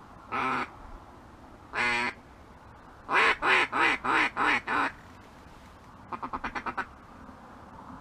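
Mallard duck call blown in a hen-mallard sequence: two single quacks, a run of six loud even quacks, then a quick string of about nine short, softer notes.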